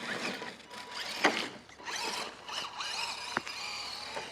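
Axial SCX10 RC crawler's electric motor and drivetrain gears whining, the pitch rising and falling with the throttle as it drives and struggles through snow. There is a sharp knock about a second in and a few light clicks later on.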